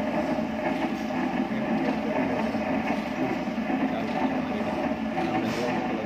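Pan-type detergent powder mixer running steadily, its motor-driven paddles churning damp powder round the steel pan.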